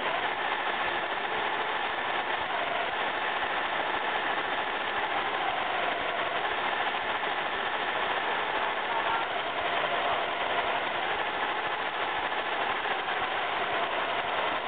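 Tajima multi-needle embroidery machine stitching at speed: a steady, rapid, even clatter of the needle bar running.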